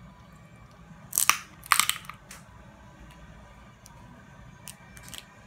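Crab leg shell cracking and crunching as it is broken open by hand: two sharp crunches a little after a second in, then a few faint clicks near the end.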